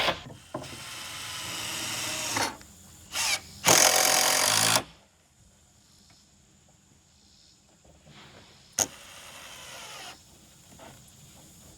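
Power tool running in several bursts, the longest and loudest about four seconds in, followed by a much quieter stretch with a single sharp click near the end.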